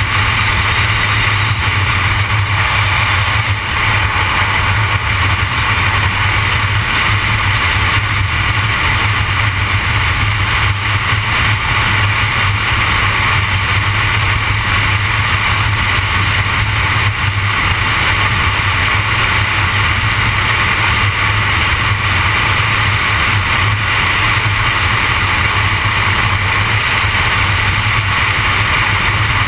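Steady road and engine noise of a vehicle cruising at highway speed, a constant low hum under a hiss with no change in pace.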